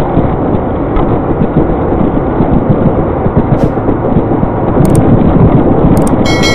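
Car driving fast, with heavy, steady low engine and road noise heard from inside the cabin. Near the end, two clicks and a ringing bell ding from a subscribe-button animation sound effect.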